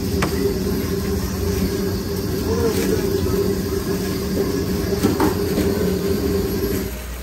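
A steady low machine hum that drops away shortly before the end, with a few faint short clicks over it.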